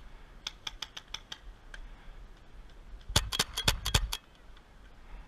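Paintball markers firing: a few faint shots in quick succession early, then a rapid string of about eight loud, sharp shots about three seconds in.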